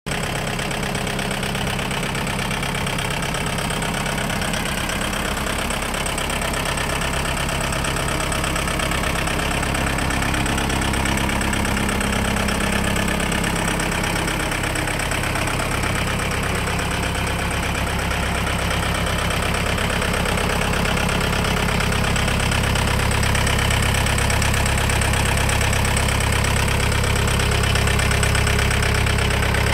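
John Deere 4720 compact tractor's diesel engine idling steadily, getting slightly louder toward the end.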